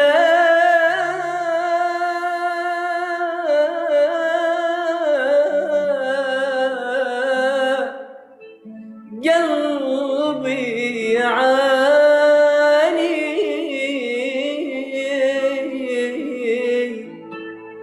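A man singing an Iraqi mawwal: long held notes with wavering ornaments, in two phrases with a short break about eight seconds in.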